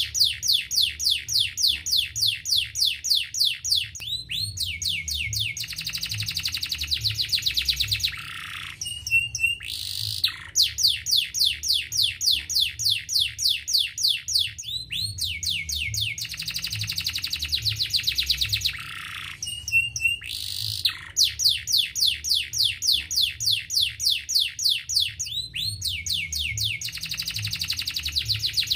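Domestic canary singing a long trilled song. Runs of quick sweeping notes at about five a second give way to a faster, denser trill and end on a sliding note. The same song sequence repeats about every ten seconds.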